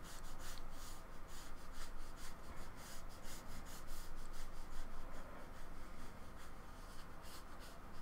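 Flat paintbrush stroking paint onto grey scrapbooking card: short, scratchy brush strokes, about three or four a second, easing off near the end.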